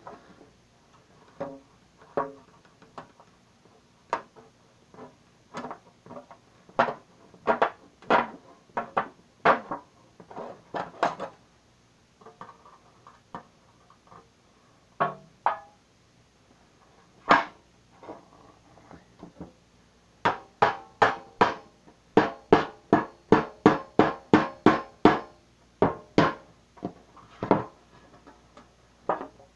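A hammer striking the back of a knife blade to punch and cut through the thin metal of a cookie tin lid: sharp metallic taps with a short ring, scattered at first, then a fast even run of about three or four a second in the last third.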